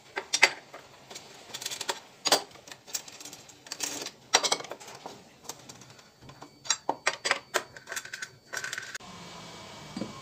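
Socket wrench ratcheting and clinking against the bolts of a scooter's CVT cover as they are undone: bursts of sharp metallic clicks. About nine seconds in, the clicks stop and a faint steady hum takes over.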